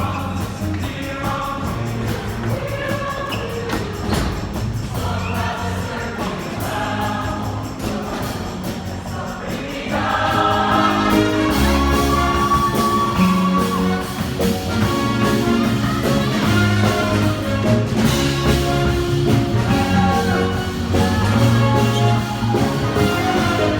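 A choir singing a song with musical accompaniment; it grows fuller and louder about ten seconds in.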